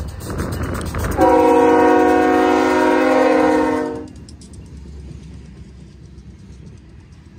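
A locomotive's multi-chime air horn sounds one long blast, a chord of several notes, for about three seconds and cuts off sharply. Under it and after it runs the low rumble of the train rolling on the rails.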